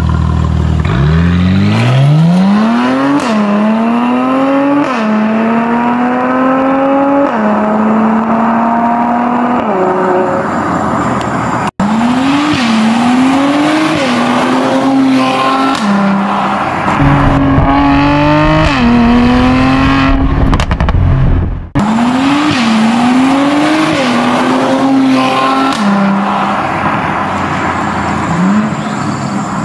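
Mercedes-AMG C43's twin-turbo V6 through a Fi Exhaust valvetronic catback, accelerating hard in three separate runs. Its pitch climbs steeply and drops back at each upshift.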